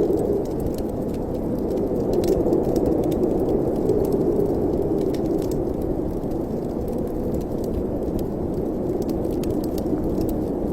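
Wind blowing through a fireplace chimney: a steady low rushing that swells and eases slowly, with scattered small clicks.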